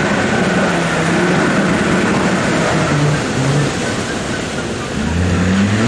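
Two Land Rover Discovery 4x4s driving through a river, engines running under a constant rush of splashing water. The engines rev up about five seconds in.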